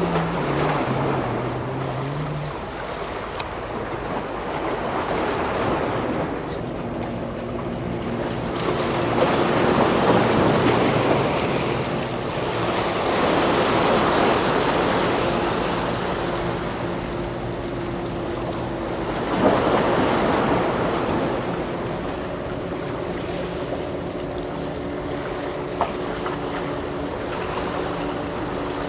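Sea swell washing against concrete breakwater blocks, the surge of water swelling and falling away every few seconds, with some wind on the microphone. A faint steady hum runs underneath.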